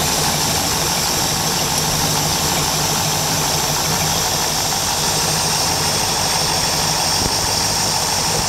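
Indmar 351 Ford carbureted V8 marine engine idling steadily, freshly timed on a new Pertronix electronic distributor. There is one faint tick about seven seconds in.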